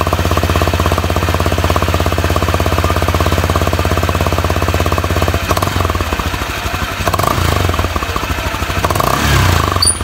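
Honda Click 125i scooter's single-cylinder engine idling through its stock muffler, whose inner tip has been cut off, so it sounds like a chicken pipe (an open racing pipe). The engine note rises briefly a couple of times in the second half.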